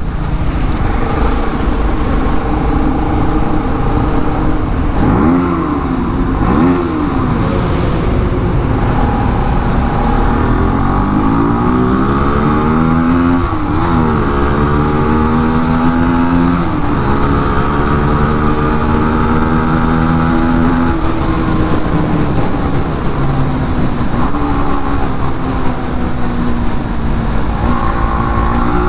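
Single-cylinder Bajaj Pulsar NS200 and Yamaha R15 V3 motorcycle engines riding through a road tunnel, their exhaust note echoing off the walls. The revs rise and fall with throttle and gear changes, with two quick blips about five to seven seconds in.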